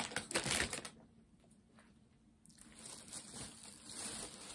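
Plastic snack packaging crinkling and rustling as bags are handled: a burst of crackling at the start, a pause about a second in, then softer rustling from about halfway.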